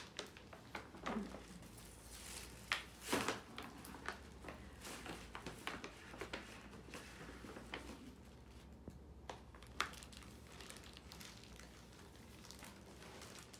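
Tissue paper and a paper gift bag rustling and crinkling in irregular bursts as a present is unpacked, with the loudest crackle about three seconds in.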